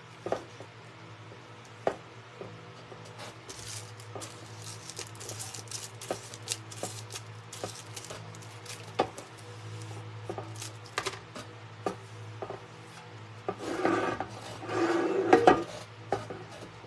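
Scattered taps and rubbing of a plastic-wrapped smoothing tool and a brush working paper down on a metal serving tray, with a louder spell of rubbing about fourteen seconds in. A faint steady low hum runs underneath.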